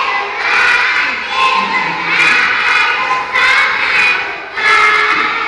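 A group of young children chanting loudly in unison, in short shouted phrases about a second each with brief gaps between.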